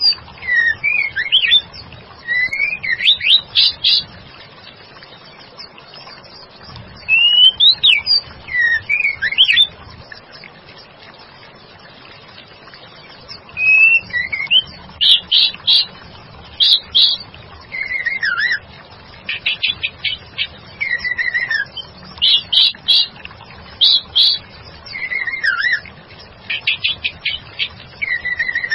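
White-rumped shama calling in a lure recording billed as a female calling a male: short phrases of whistles that slide up and down, mixed with fast chattering notes. The phrases are separated by pauses at first and come more often in the second half.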